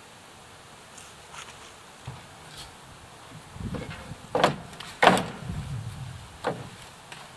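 Scattered wooden knocks and clunks from handling lumber and tools: a few light clicks, then a cluster of louder thumps and knocks in the middle, the loudest about four and five seconds in.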